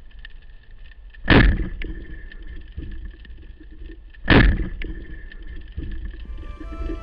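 Two sudden loud thuds about three seconds apart, each dying away over about half a second, over a faint steady tone.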